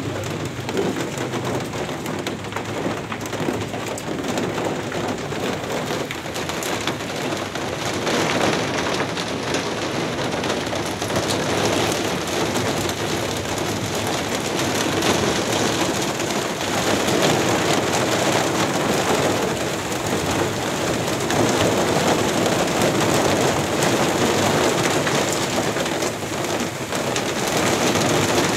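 Heavy rain falling on roofs and hard courtyard surfaces, a dense steady patter of drops that grows a little louder after about eight seconds.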